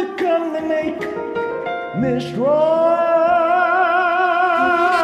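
A man singing a gospel song over a karaoke backing track, moving through several short notes and then, about two and a half seconds in, holding one long note with vibrato.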